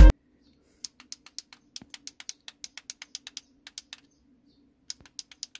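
Light plastic clicks and taps from a small handheld infrared steering-wheel remote being handled and its buttons pressed, a few a second and irregular, with a pause about four seconds in. A faint steady low hum lies underneath.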